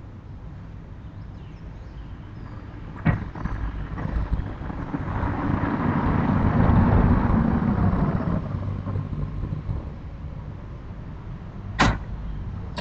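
Storm shutters (amado) sliding along their track: a rumble that swells over a few seconds and then fades, preceded by a single click, with a sharp knock near the end.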